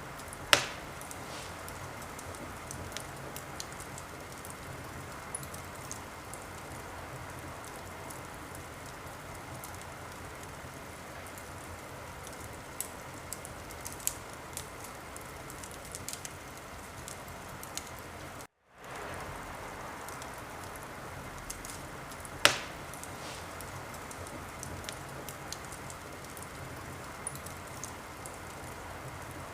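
Wood fire crackling in a fireplace: a steady hiss with scattered small crackles and two sharp loud pops, one just after the start and one about two-thirds through. The sound drops out for a moment near the middle.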